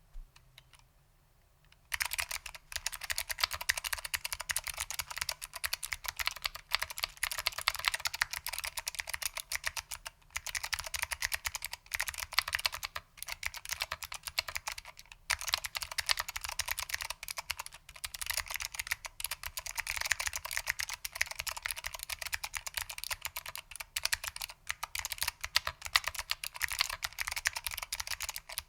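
Fast, continuous typing on a Lunar AEK 65 keyboard with foam-damped SKCM Blue Alps switches, which are clicky, under ABS doubleshot keycaps. It starts about two seconds in, with brief pauses between bursts of keystrokes.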